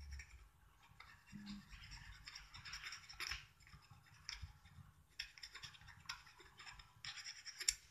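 A pen tip scratching back and forth as it colours the edge of a flat bauble, in two faint stretches of short strokes, the second starting about five seconds in.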